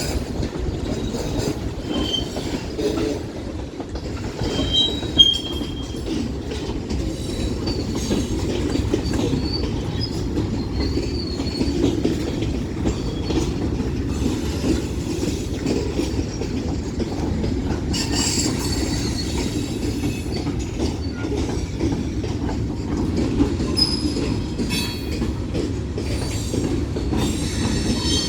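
Union Pacific manifest freight train's cars rolling past at close range: a steady rumble of wheels on rail. Brief high-pitched wheel squeals sound a few seconds in and again near the end.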